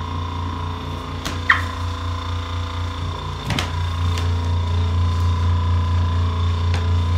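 A steady low motor hum that gets louder about halfway in, with a few sharp clicks or knocks over it, the loudest about a second and a half in.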